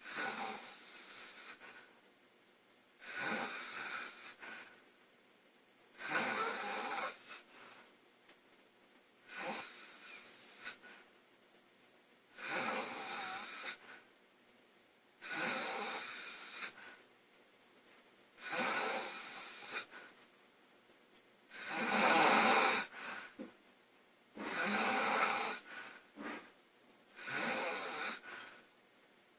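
A girl snoring loudly in a steady rhythm: about ten snores, one roughly every three seconds, each lasting about a second.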